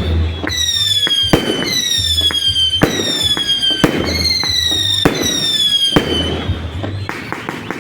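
Fireworks going off: sharp bangs and crackles, over a high whistle that falls in pitch and repeats about once a second until near the end.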